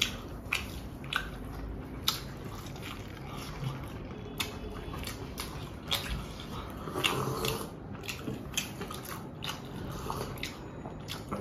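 A person biting and chewing food, with irregular soft clicks and smacks of eating.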